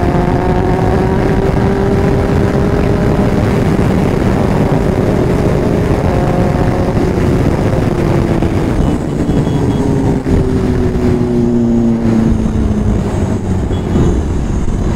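Motorcycle on the move, filmed from onboard: the engine running steadily under a heavy rush of wind and road noise. Its note slowly drops in pitch past the middle as the bike slows.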